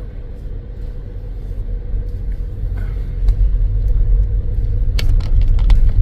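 Low rumble of a vehicle moving along a cobbled street, mixed with wind buffeting the microphone, growing steadily louder. A couple of sharp knocks come in the second half.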